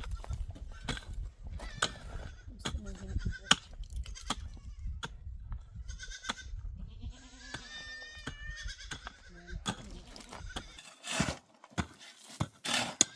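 A goat bleating, one long wavering call about seven seconds in, over a low rumble and scattered sharp knocks.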